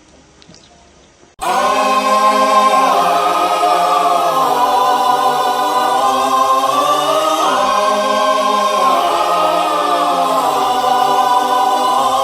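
A choir suddenly comes in about a second and a half in, singing a long held 'aah' whose chord shifts several times.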